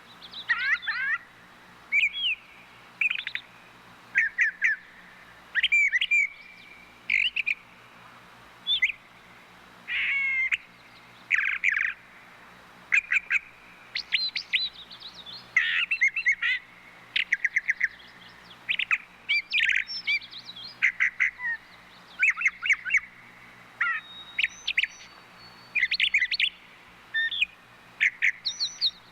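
Thrushes singing: a string of short, varied phrases of clear whistles and fast repeated notes, one after another with brief pauses between them.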